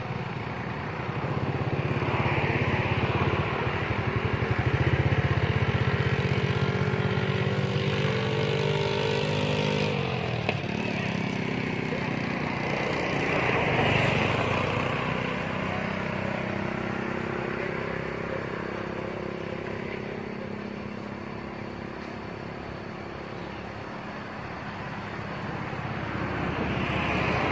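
Motor traffic passing on a road: engine hum swelling and fading several times, with one engine note dropping in pitch as it goes by about ten seconds in.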